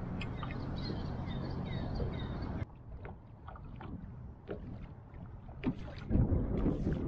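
Light chop lapping and splashing against a plastic kayak hull, with wind gusting on the microphone, loudest near the end. Faint bird chirps are heard in the first couple of seconds.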